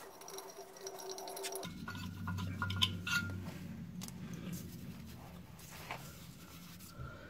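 Light clicks and rubbing from a gloved hand handling the exhaust bracket and catalytic converter, with a small cluster of clicks a few seconds in. A low steady hum comes in about one and a half seconds in.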